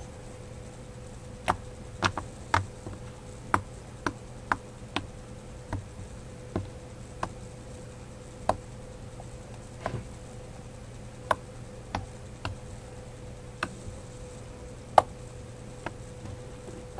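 Homemade glue slime being pressed and stretched, giving sharp, irregular pops and clicks about once a second, with one louder pop near the end. Under it runs a steady electrical-sounding hum.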